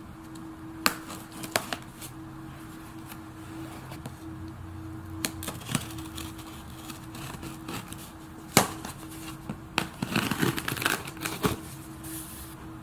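Packaging handled on a table: several sharp clicks and knocks, with a burst of crinkling about ten seconds in, over a steady low hum.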